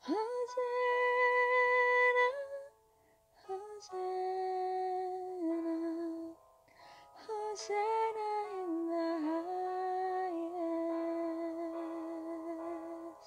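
A woman humming a wordless melody in long held notes that glide gently between pitches, over soft backing music. She holds one high note for about two seconds, pauses briefly, then carries on with lower phrases.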